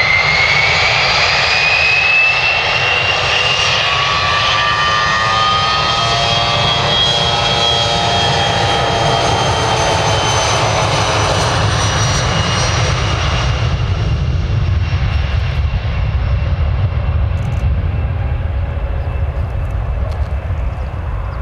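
Bombardier Challenger 605 business jet's twin General Electric CF34 turbofans at take-off power: a deep rumble under several high whining tones that rise over the first few seconds. After about fourteen seconds the whine fades and a duller rumble remains as the jet draws away.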